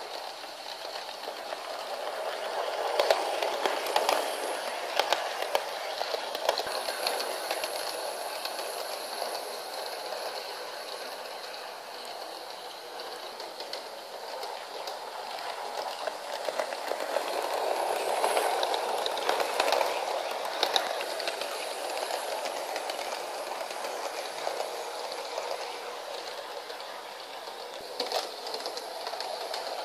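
Model 060-EA electric locomotive pulling passenger coaches around a sectional track loop on a wooden floor: a continuous rumble of running wheels with clicks over the rail joints. It gets louder twice as the train passes close, about three to five seconds in and again around eighteen to twenty-one seconds.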